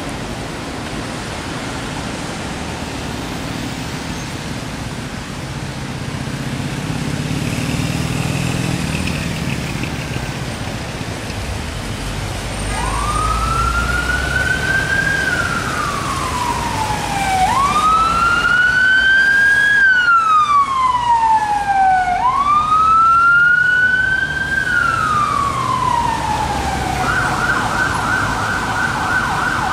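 Traffic engines and road noise, then about halfway through a UK emergency vehicle siren starts: three slow rising-and-falling wails, switching near the end to a fast yelp.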